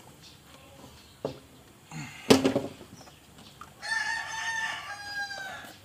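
A rooster crowing once, a drawn-out call of nearly two seconds starting about four seconds in. Before it comes a sharp knock about two seconds in, the loudest sound here, with a few fainter clicks.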